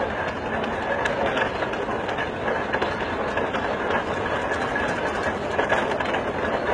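Engine of a large early vintage tractor running steadily as the tractor drives slowly past.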